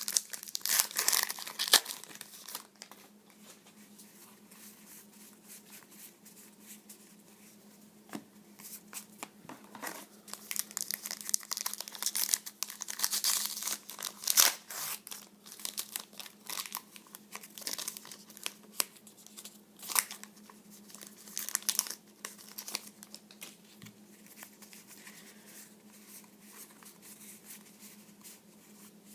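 Trading card pack wrappers being crinkled and torn open by hand, in bursts with quieter pauses between, over a faint steady hum.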